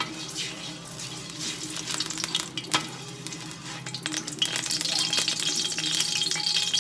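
Cooking oil sizzling and crackling in a large aluminium wok while a spatula stirs and scrapes across the metal bottom. The sizzle grows louder about four seconds in, over a low steady hum.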